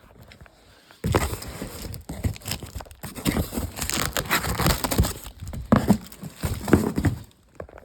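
A box being unpacked: packing material crumpled, crinkled and torn in a busy, crackly rustle that starts about a second in and stops shortly before the end.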